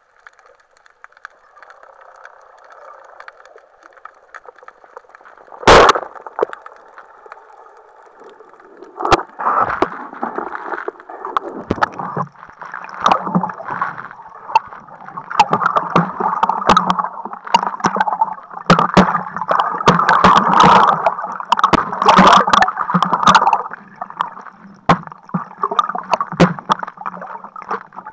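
Underwater spearfishing: a faint steady underwater hiss, then one loud sharp crack about six seconds in, the speargun shot at a gilthead sea bream, which misses. From about nine seconds on, loud churning and splashing water with bubbles and knocks against the camera as the diver swims at the surface.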